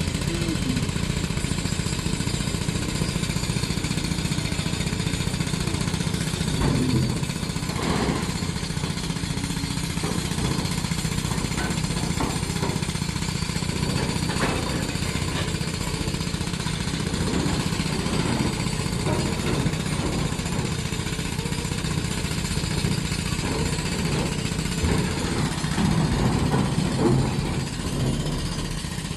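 Diesel engine of heavy construction machinery running steadily, with a few short knocks or clanks, one about eight seconds in and one about fourteen seconds in.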